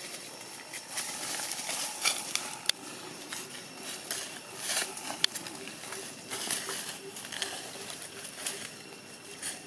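Dry leaf litter rustling and crackling in irregular bursts under macaques moving about and feeding, with a few sharp clicks scattered through.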